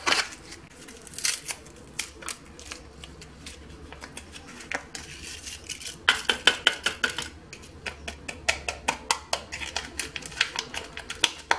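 A paper sachet of strawberry jelly powder being handled over a saucepan: crinkling and rustling as it is shaken out, with a run of rapid crackles about halfway through, then more crackling as the empty sachet is squeezed and crumpled, with light clinks of metal against the pan.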